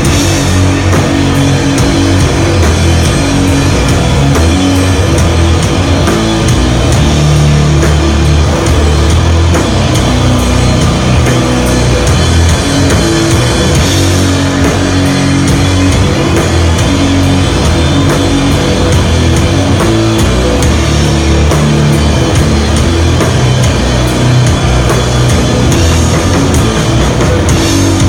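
Doom metal band playing live, very loud: heavily distorted, down-tuned guitars and bass holding long low notes over drums in a slow riff.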